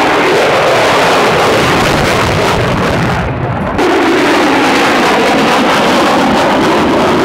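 Loud, steady roar of military jet engines, changing abruptly about four seconds in.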